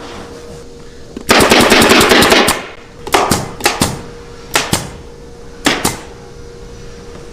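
Pneumatic fastening gun firing on a furniture frame: a rapid volley of about a dozen shots about a second in, then four quick double shots spaced about a second apart, over a steady machine hum.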